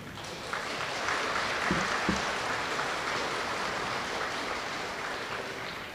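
Audience clapping, building over the first second and slowly tapering off toward the end.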